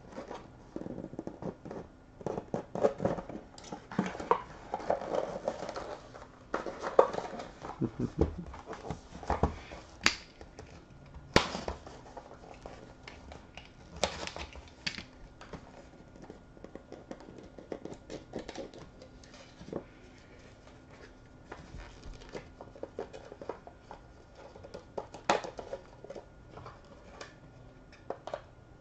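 A sealed box of trading cards being torn open and unpacked by hand: irregular crinkling, tearing and scraping of cardboard and plastic packaging, with several sharp clicks and snaps.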